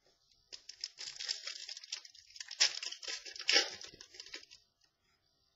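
Trading cards and their packaging being handled: an irregular rustling and crinkling for about four seconds, with a few louder crackles.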